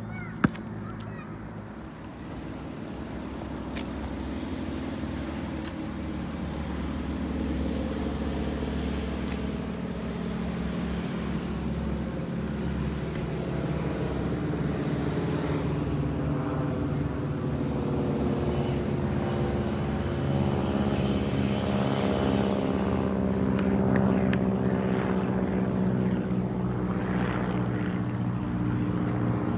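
Two propeller planes flying overhead, their engines a steady drone that builds louder and peaks about 24 seconds in. A single sharp click about half a second in.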